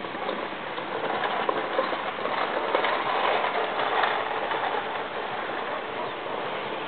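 Outdoor background noise: a continuous noisy wash with a few faint clicks, swelling louder in the first half and then settling.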